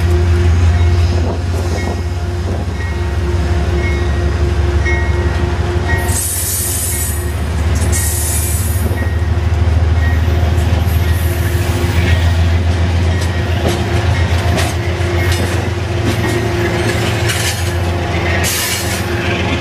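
Amtrak passenger cars rolling past close by: a steady heavy low rumble of wheels on rail, with several short bursts of high-pitched wheel squeal.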